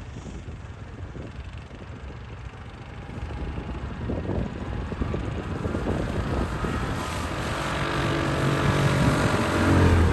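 Quad bike engine running, growing steadily louder as it comes closer, its engine note clear and varying in pitch over the last few seconds.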